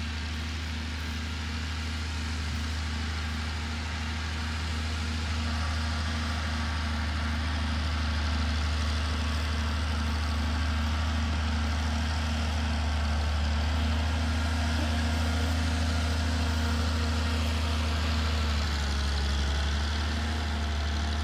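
Galion 118B grader's early naturally aspirated Cummins diesel running steadily as the grader works along a dirt pile, a deep even engine note that grows gradually louder as the machine approaches.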